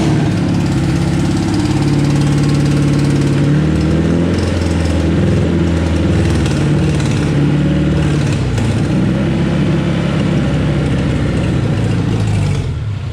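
Honda K20 four-cylinder engine running on its first start-up, its revs rising and falling unevenly as the throttle is worked by hand, then dropping away near the end as it dies.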